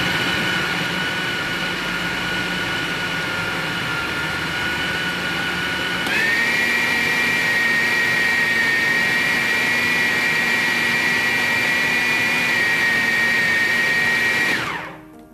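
Electric food chopper's motor whirring steadily as it minces boneless fish with onion, green chillies and coriander. About six seconds in its pitch steps up, and near the end the motor cuts off and winds down.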